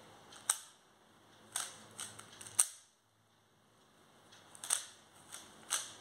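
Plastic clicks and clacks of a 3x3 Rubik's cube as its layers are turned by hand: short sharp snaps coming irregularly, about one or two a second.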